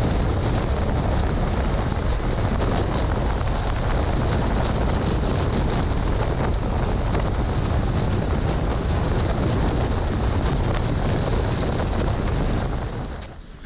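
Wind rushing over a handlebar-mounted camera's microphone while a Piaggio MP3 Yourban 300 three-wheeled scooter rides at speed: a steady, loud rush heavy in the low end. It fades out near the end.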